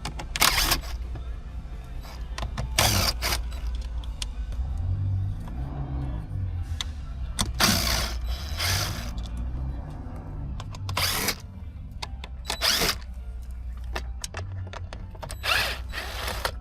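Dashboard screws being undone with a hand tool: short rasping bursts of tool and screw noise every second or two, about eight in all, over low background music.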